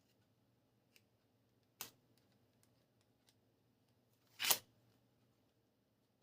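Sharp clicks and snaps from handling plastic toy gun parts: a click about two seconds in and a louder snap about four and a half seconds in, with a few faint ticks between.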